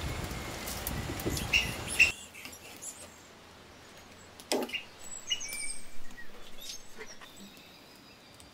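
Small birds chirping, over a steady hiss that drops away suddenly about two seconds in. A few light clicks and scrapes follow.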